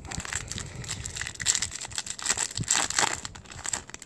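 Foil wrapper of a trading-card booster pack crinkling and tearing as it is ripped open and handled by hand: an irregular run of sharp crackles.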